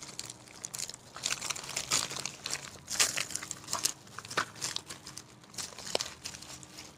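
A mailer package being opened by hand, its wrapping crinkling and rustling in irregular bursts.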